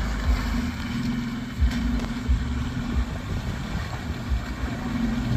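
Maruti Gypsy's engine running steadily at low revs as the 4x4 crawls through mud, with wind buffeting the microphone in irregular low thumps.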